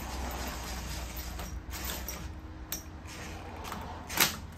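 Small metallic clicks and rattles from hand work on the handlebar clamp hardware, with one sharp metallic click a little past four seconds in.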